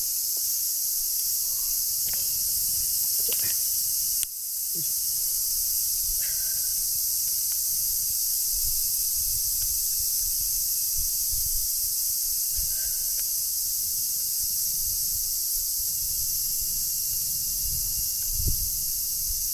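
Steady, high-pitched chirring of an insect chorus, crickets, with gusty wind rumbling on the microphone. The chorus breaks off for a moment about four seconds in.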